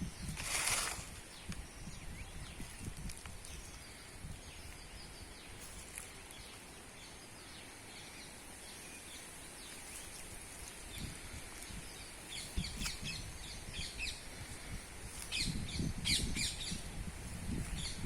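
Small birds chirping in quick, scattered calls, busiest in the second half, over a steady high hiss and irregular low wind rumble. A brief rustle sounds near the start.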